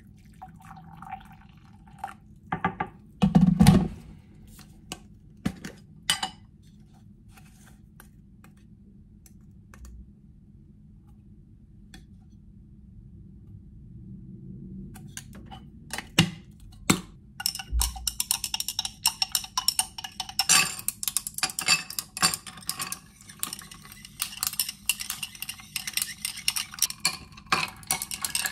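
Kitchen sounds of making iced coffee in a glass tumbler. Near the start, hot water is poured from an electric kettle into the glass, followed by a few loud knocks as things are set on the counter. Then a spoon taps, and through the second half ice cubes clink and rattle against the glass as they are stirred with a long straw.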